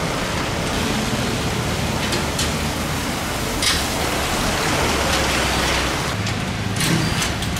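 Steady rain falling on a wet street, with the low rumble and tyre hiss of a car passing on the wet road. A few sharp clicks stand out, one near the middle and two near the end.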